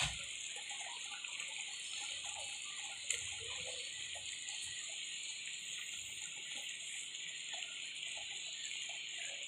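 Pork mechado stew simmering in the pan: a steady hiss with faint, scattered bubbling. There is a light click about three seconds in.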